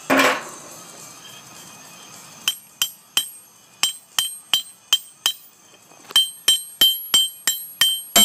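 Hand hammer striking heated steel, about three ringing metallic blows a second in two runs after a brief pause, in the forging of a blacksmith's tong half. A short, loud noise comes right at the start.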